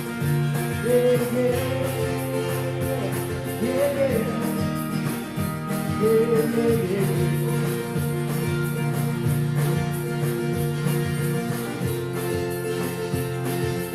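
Band music led by guitar over a steady bass and beat, with a few sliding melody notes on top.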